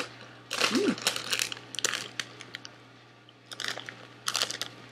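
Crunching of Cheetos cheddar jalapeño popcorn being chewed for a couple of seconds, with a short hum, then a plastic snack bag crinkling as it is handled near the end.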